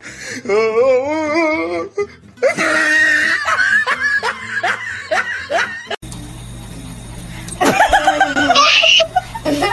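A person laughing hard, with music: first a wavering laugh, then a long run of rhythmic ha-ha's at about four a second. The laughter breaks off abruptly about six seconds in, and music with more laughter follows.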